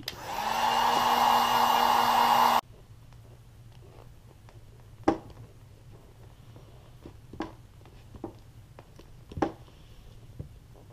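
A 1500-watt heat gun blowing hot air onto a clear sole-protector film to seal it after a puncture. It runs with a steady whine for about two and a half seconds and then cuts off suddenly. A few faint knocks follow as the shoe is handled.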